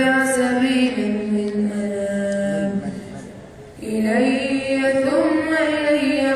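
A boy reciting the Quran aloud in the chanted, melodic tajweed style, holding long drawn-out notes. One phrase ends a little past three seconds in and a new one begins after a short breath pause.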